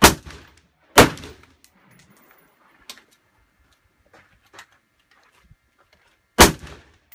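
Three rifle shots: two about a second apart at the start and a third about six seconds later, each followed by a short ringing echo.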